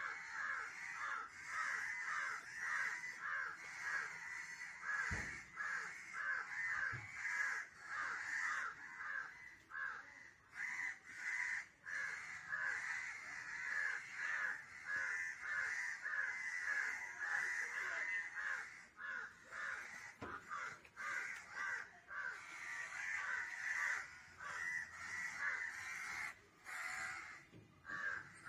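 Crows cawing in a rapid, continuous train of harsh calls, several a second, with a few brief low thumps in between.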